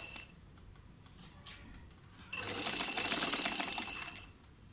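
Sewing machine stitching a rolled hem through a hemmer foot, in rapid, even stitches: a run of stitching ends just at the start, and after a pause of about two seconds another run of about two seconds follows.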